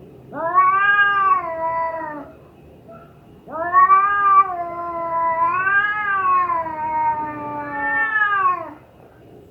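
Domestic cat in heat yowling: two long wavering calls, the first about two seconds long, the second about five seconds, rising and falling in pitch.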